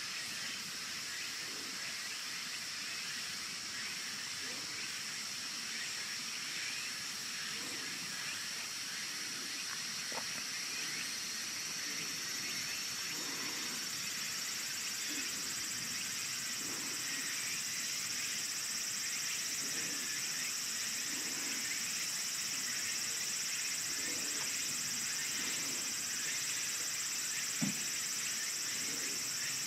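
Steady, high-pitched chorus of insects droning outdoors, with faint distant voices underneath and a single sharp click near the end.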